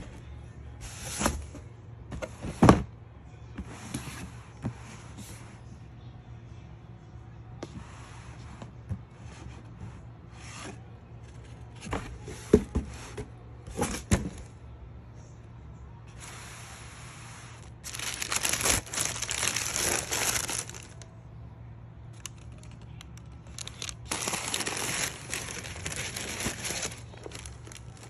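Cardboard boxes being handled and opened, with scrapes and several sharp knocks as flaps and lid are moved. This is followed by tissue paper rustling and crinkling in two long stretches as a pair of shoes is unwrapped.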